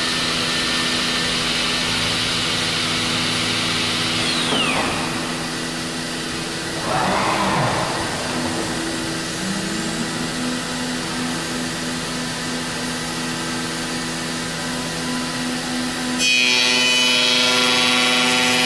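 Biesse Rover 35 CNC machining centre running while machining a wooden door-frame piece: a steady machine hum with several fixed tones. A high tone falls away about four seconds in, a short rush of noise comes near eight seconds, and a tone glides up about ten seconds in. About sixteen seconds in the machine suddenly gets louder with a high whine.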